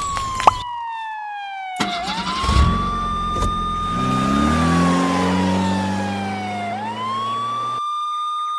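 Police siren wailing: the tone twice slides slowly down and then sweeps quickly back up. Under it, an engine starts about two seconds in, revs up, then runs steadily before cutting off near the end.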